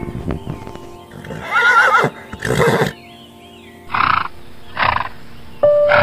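Horse whinnying, four calls: the first, about a second and a half in, with a wavering pitch, then three shorter ones. Background music under it, coming up louder near the end.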